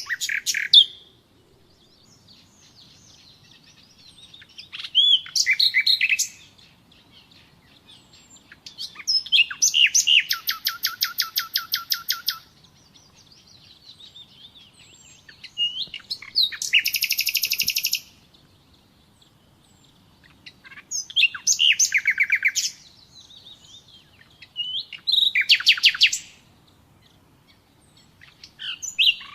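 Common nightingale singing: separate phrases a few seconds apart, each a fast run of rapidly repeated notes, some led in by soft whistled notes.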